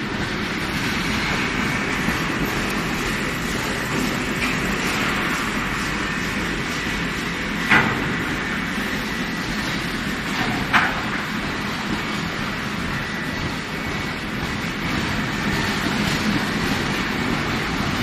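Steady rumbling, rattling noise of heavy steel-bar handling machinery running on a forging line. Two sharp metallic clanks come about halfway through and again some three seconds later.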